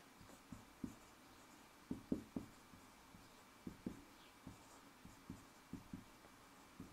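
Marker pen writing on a whiteboard: a string of faint, short, irregular strokes as letters are drawn.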